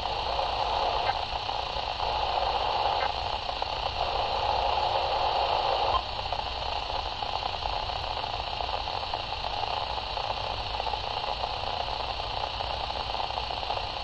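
Steady static hiss from a Midland weather radio's speaker tuned to a NOAA Weather Radio station, with no voice or alert tone; the hiss drops a little in level about six seconds in.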